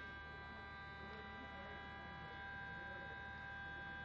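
A steady electrical whine with several high tones over a low hum, unchanging throughout.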